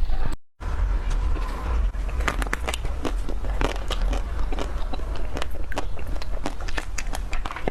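Chocolate ice cream being bitten and chewed close to the microphone: dense, irregular crackling crunches. The sound cuts out briefly just after the start, and a steady low rumble runs underneath.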